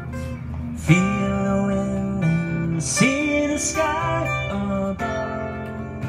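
Acoustic guitar strummed and picked, with a man's voice singing two long held notes that scoop up into pitch, about one and three seconds in.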